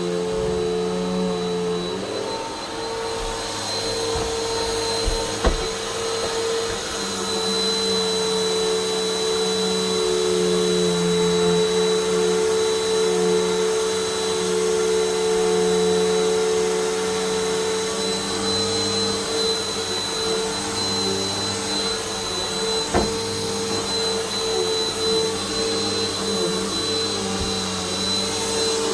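A vacuum cleaner running steadily, its motor whine holding a near-constant pitch, with a couple of short knocks about five seconds in and again near the end.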